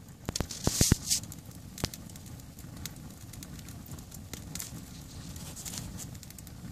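Wood campfire burning with a steady low rush of flame and crackling. A cluster of sharp pops and snaps with a brief hiss comes about a second in, then scattered smaller crackles.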